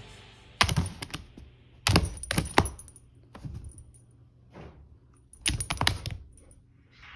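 Light clicking and clinking of small hard objects, in three short clusters: about half a second in, around two seconds in, and again past five seconds.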